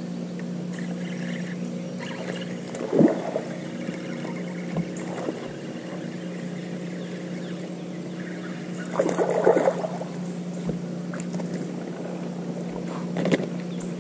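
Steady electric motor hum from a bow-mounted trolling motor on a bass boat. A few short, louder noises stand out above it, the loudest lasting about a second, nine to ten seconds in.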